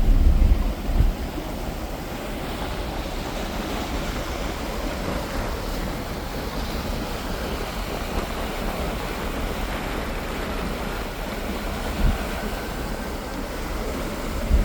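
Wind buffeting the microphone on the deck of a moving Mersey ferry, over a steady wash of water and engine rumble. Heavier gusts hit the microphone in the first second, about twelve seconds in, and near the end.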